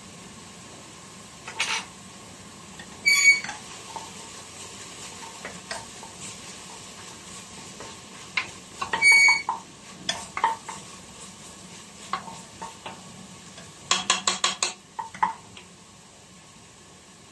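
Chopped onions sizzling in oil in a stainless steel pot while a wooden spoon stirs and scrapes them, knocking against the pot. Twice the spoon strikes the pot with a short metallic ring, and near the end it gives a quick run of about six taps.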